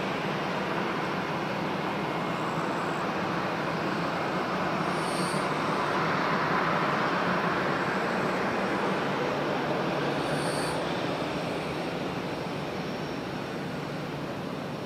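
Airbus A320's jet engines at taxi power as the airliner rolls past, a steady rushing whine that swells about halfway through and eases off as it turns away.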